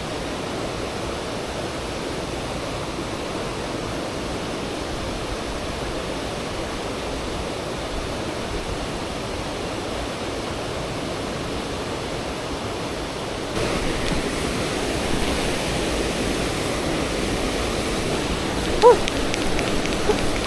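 Steady rush of flowing stream water that turns louder and brighter about two-thirds of the way through, with one brief pitched chirp near the end.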